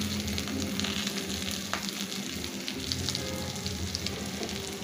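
Chopped garlic sizzling in hot oil in a karai, a dense, steady crackle of small pops. It is the tempering (baghar) for dal, being fried.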